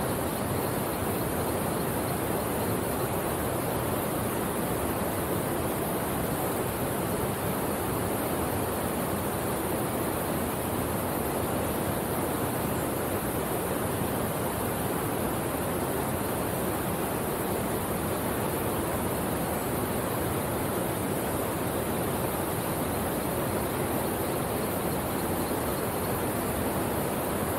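Steady rushing of a small waterfall cascading into a rock pool, an even wash of water noise that does not change.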